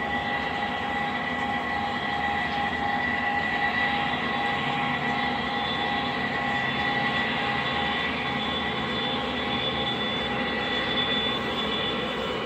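O scale three-rail model train running on the track: a steady motor whine over the rumble of wheels on the rails.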